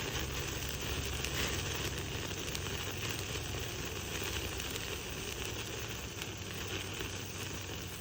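Meat sizzling on a grill over a wood fire: a steady hiss with many small crackles.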